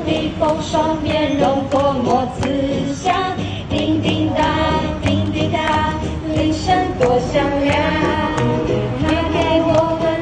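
A group of women and children singing a Chinese Christmas song together over backing music from a portable speaker.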